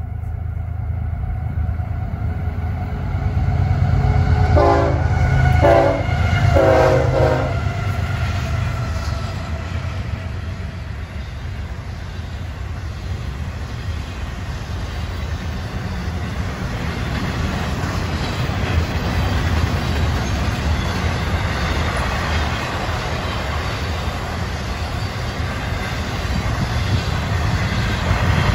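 Florida East Coast Railway intermodal freight train passing: diesel locomotives rumble by and sound a few short horn blasts about five to seven seconds in, the last the longest. After that comes the steady rumble and wheel noise of the intermodal cars rolling past.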